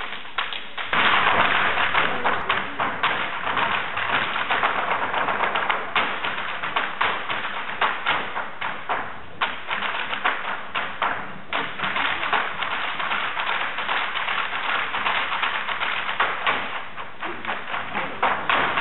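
Irish dance hard shoes beating fast, dense rhythms of taps and clicks on a stage floor.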